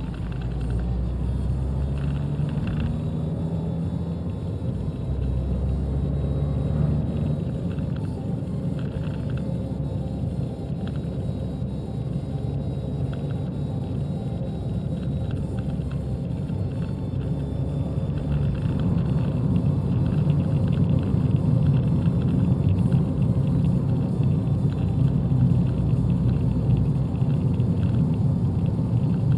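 Abarth 595's 1.4-litre turbocharged four-cylinder engine and tyre rumble heard from inside the cabin while driving, getting louder about two-thirds of the way through.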